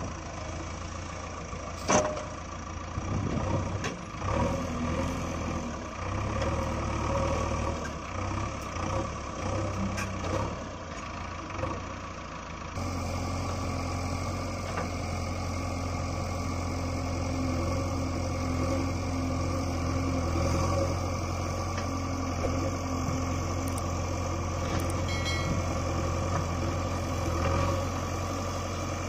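JCB 3DX backhoe loader's four-cylinder diesel engine running under hydraulic load as the backhoe digs, its note rising and falling, with a few sharp knocks in the first half. About 13 seconds in the sound changes abruptly to a steadier, fuller engine hum.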